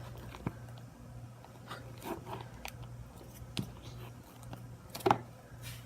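Fluffy slime made of glue, shaving cream and contact solution being mixed and squished, giving scattered soft sticky clicks and squelches, a sharper pop near the end, over a faint steady low hum.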